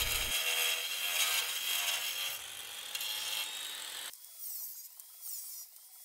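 Calciboard being cut and worked: a steady cutting noise that fades over the first four seconds, then rhythmic scraping strokes about once a second.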